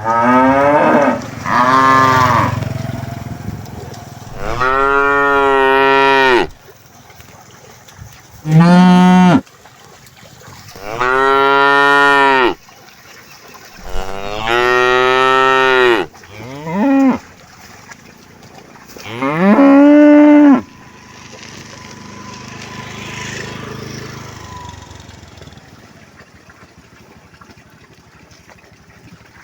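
Cattle mooing: about eight loud, drawn-out moos in the first twenty seconds, some long and held, one short and falling, then a quieter stretch with no calls.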